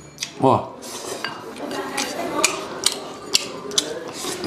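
A spoon scraping and clicking against a ceramic rice bowl as rice is scooped up and eaten, with about six sharp clicks. A short exclamation, "wa!", comes about half a second in.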